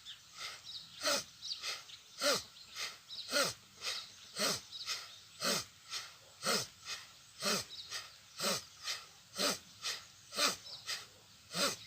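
Bhastrika pranayama (bellows breath) done at a slow pace: forceful breaths in and out through the nose, about one full breath a second, alternating a louder and a softer puff in a steady rhythm.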